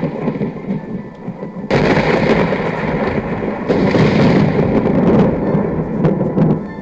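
Thunder rumbling, quieter at first, then breaking in loudly about two seconds in and rolling on steadily.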